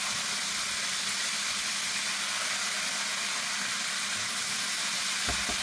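Breaded chicken breasts deep-frying in hot oil, a steady sizzle as the pieces are turned over with tongs. A few soft knocks near the end.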